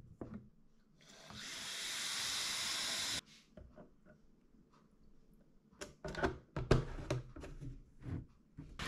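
Kitchen tap running water into a carpet cleaner's plastic clean-water tank for about two seconds, then shut off abruptly. Near the end come a few clicks and knocks as the plastic tank and its cap are handled.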